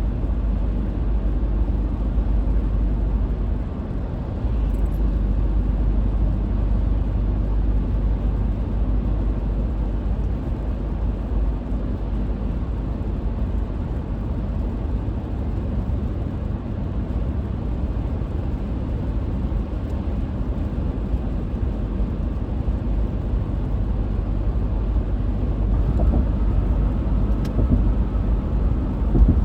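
Car travelling at highway speed, about 55 mph, giving a steady low rumble of tyre and engine noise that grows slightly louder near the end.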